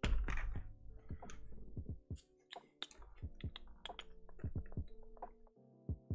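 Background music, with short sharp plastic clicks and taps of keycaps being pulled off and pressed onto keyboard switches; a louder knock in the first half second.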